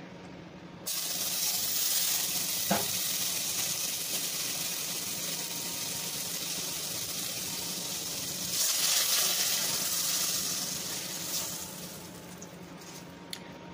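A tablespoon of butter sizzling as it melts in a hot nonstick frying pan: a steady hiss that starts abruptly about a second in, grows louder for a couple of seconds past the middle, and dies down near the end. A single light click a few seconds in.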